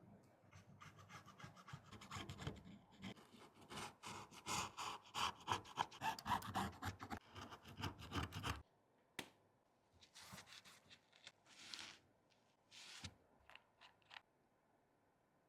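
A hand tool scraping in quick strokes, several a second, at the cracked back glass of an iPhone 14 Pro Max. The scraping stops abruptly about eight and a half seconds in, followed by a few separate short scrapes.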